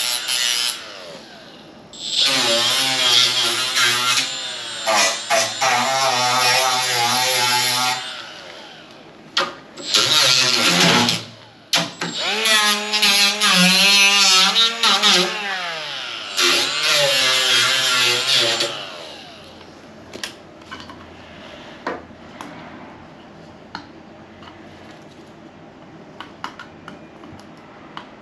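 Small cordless Milwaukee disc sander running in about five bursts of a few seconds each, its whine wavering and gliding in pitch over a gritty sanding hiss as it scuffs the gloss off fiberglass. The runs stop about two-thirds of the way in, leaving light handling clicks.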